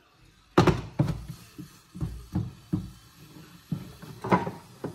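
A wooden spoon knocks and scrapes against a metal cooking pot while stiff ugali is scooped out of it. The knocks come in an irregular run of about ten, and the loudest is about half a second in.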